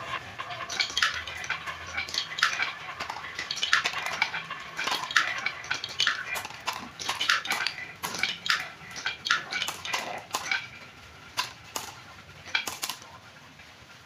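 Glass marbles rolling down wavy wooden marble-run slopes, clattering against the wood in a rapid, irregular stream of light clicks and knocks that thins out near the end.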